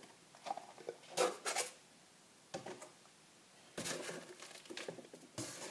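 Clear plastic deli containers and a cardboard box being handled: a handful of short crinkles and light knocks, the busiest stretch about four seconds in.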